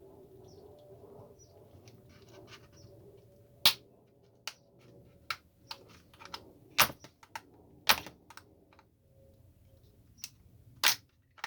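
Sharp plastic clicks and snaps, irregular and scattered, as a laptop battery pack's plastic case is pried apart with a screwdriver. The loudest snaps come about four, seven, eight and eleven seconds in.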